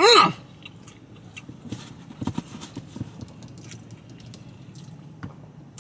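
A man chewing a mouthful of pulled pork sandwich: a short vocal 'mm' that rises and falls in pitch at the start, then quiet wet mouth clicks and smacks as he chews.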